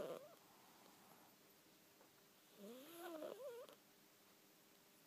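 Sleeping cat snoring with odd squeaky calls on its breath: one rising, wavering call a little over a second long about two and a half seconds in, with the tail of another at the very start.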